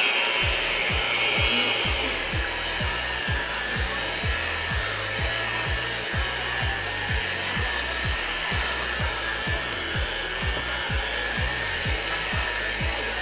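Electric hand mixer running steadily with its beaters in a stainless steel bowl, beating eggs into cake batter. A high, even whine with low knocks two or three times a second; the pitch dips slightly about two seconds in.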